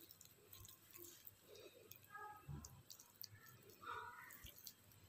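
Faint soft squishing and a few light clicks as cooked minced-meat filling is pressed by hand into a hollowed bitter gourd.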